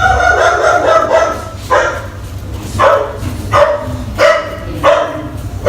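A dog barking repeatedly. A longer whine at the start is followed by short, high barks about once a second.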